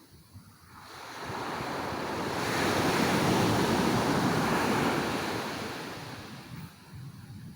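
A sea wave breaking and washing up the beach: a rush of surf that swells over a couple of seconds, holds, then fades away.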